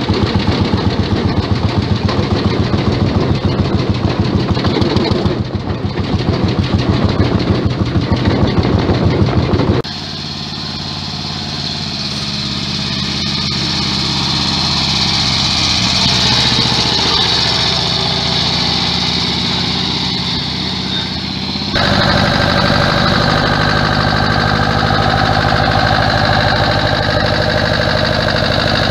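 Vintage tractor engines running in three separate clips: first a fast, regular chugging heard from the driver's seat, then a quieter tractor engine, then a turquoise Fahr tractor's engine running steadily close by.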